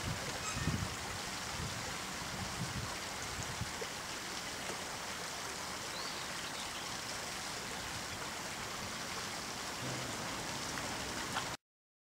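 Steady hiss of flowing water, with a few low rumbles in the first few seconds. The sound cuts off suddenly near the end.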